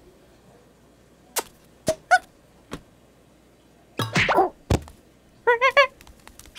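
Cartoon sound effects: a couple of sharp clicks, a short rising squeak, then a swooshing burst and a heavy thunk about three-quarters of the way in, followed by a wobbling, squeaky cartoon-monkey vocal sound near the end.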